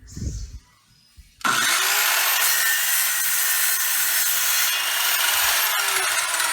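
Hoyoma HT-CS1400 1400 W circular saw with a 185 mm, 24-tooth blade switched on about a second and a half in. It spins up quickly and then runs loud and steady while cutting through coconut lumber.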